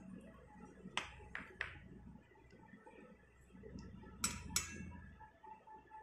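A few light clinks of kitchenware, dishes or a utensil being handled: three quick ones about a second in and two more a little past four seconds.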